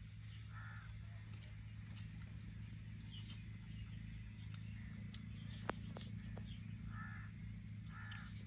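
Birds calling outdoors: one short call just after the start and two more near the end, with faint high chirps in between. A steady low hum runs underneath, and there is one sharp click a little past halfway.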